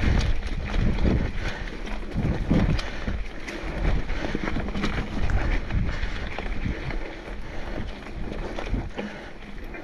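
Mountain bike riding up a dirt singletrack: low rumble and buffeting of wind on the camera microphone, with tyre noise and scattered clicks and rattles from the bike. The rumble is heaviest in the first few seconds and eases off later.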